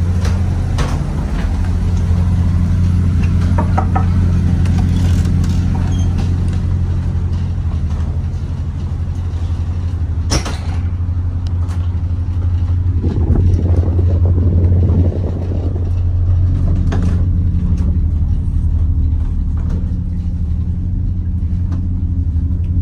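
Boat's inboard engine running with a steady low drone, heard from below deck inside the hull. A sharp knock about ten seconds in.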